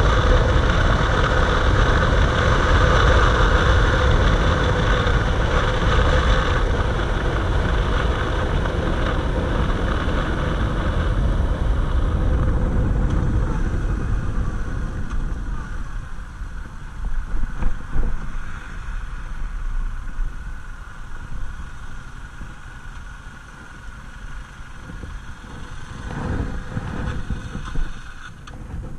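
Yamaha MT-07's parallel-twin engine running at road speed under steady rushing noise. About halfway through it falls away as the bike slows, with a couple of brief louder surges. It settles to a quiet idle as the bike pulls up and stops.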